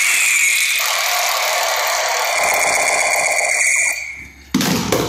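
Battery-powered silver toy gun's electronic sound effect: a loud, steady buzzing whir with a high whine, stopping about four seconds in. A short noisy clatter follows near the end.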